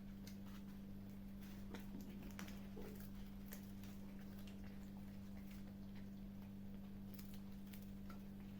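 Kittens eating, with small irregular chewing clicks and crunches of food, over a steady low hum.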